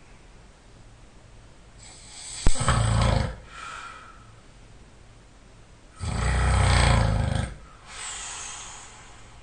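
A man snoring loudly in his sleep: two loud snores about four seconds apart, each followed by a quieter breath, the first with a sharp click in it.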